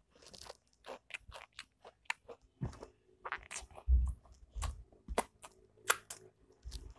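Close-up chewing of Mister Potato ghost pepper potato crisps: irregular sharp crunches and crackles, with a few dull low thuds about four to five seconds in.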